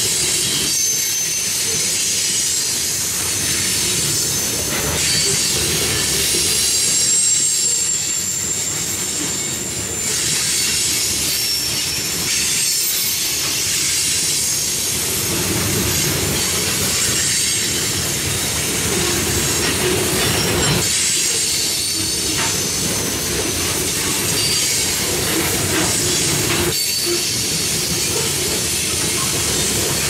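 Covered hopper cars of a freight train rolling past close by: a steady rumble of steel wheels on rail, with thin high-pitched wheel squeal coming and going and an occasional knock as trucks pass.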